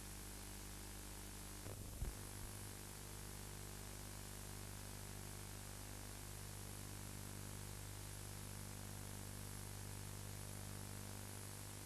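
Steady electrical hum and hiss, with a brief cluster of knocks about two seconds in.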